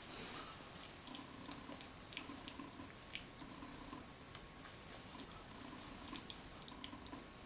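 A Jack Russell terrier growling low in a series of short rumbles, each about half a second long, while it chews a plush squeaky toy, with faint clicks in between.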